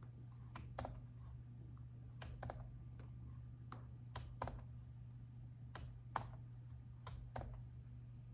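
Laptop keyboard keystrokes, slow and scattered rather than continuous typing, about a dozen sharp key clicks mostly in pairs, over a faint steady low hum.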